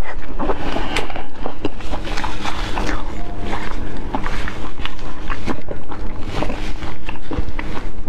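Close-miked chewing and wet mouth sounds: irregular smacks and clicks as a mouthful of spicy seafood is chewed with the lips closed.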